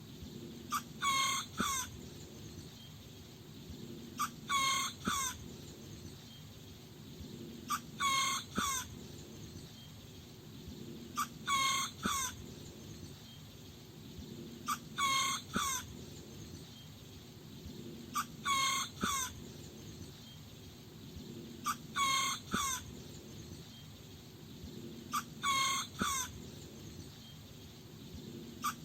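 A small rooster crowing again and again, eight short crows evenly spaced about three and a half seconds apart, over a faint low steady background.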